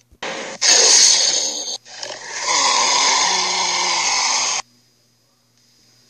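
Cartoon tyrannosaur roars, Red Claw's sound effects played back through a laptop's speakers and picked up by a camera: a short roar, then a longer growling roar that cuts off suddenly about three-quarters of the way through.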